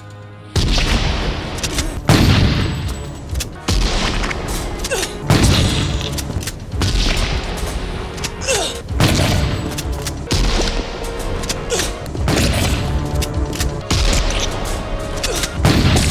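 Repeated shotgun blasts in a film soundtrack, about ten of them, one every second and a half to two seconds, each with a long echoing tail, over a musical score.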